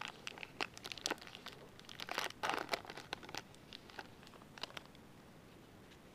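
Trading-card pack wrapper crinkling as it is torn open by hand and pulled off the cards. A run of short crackles, the loudest about two and a half seconds in, thinning out near the end.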